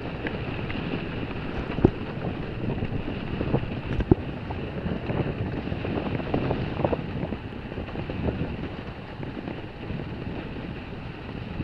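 Wind rushing over the microphone and snow hissing under sliding gear as the camera moves downhill behind a snowboarder, with sharp knocks about two and four seconds in.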